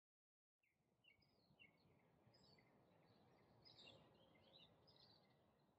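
Very faint birds chirping: many short high chirps over a soft background hiss.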